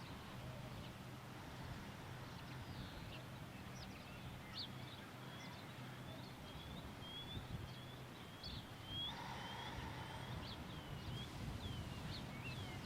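Faint birdsong: a string of short, high chirps repeating quickly, growing busier about four seconds in, over a low steady hum.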